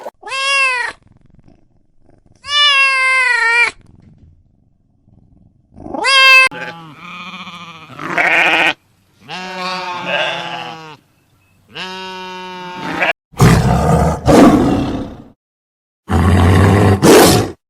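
A run of separate animal calls. First come a few drawn-out pitched cries, some arching and some wavering. In the last few seconds there are two long, rough, noisy roars.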